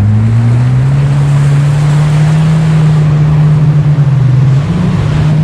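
Jet ski engine accelerating, its pitch rising over the first second or so and then holding steady at speed, over a rush of water spray and wind noise.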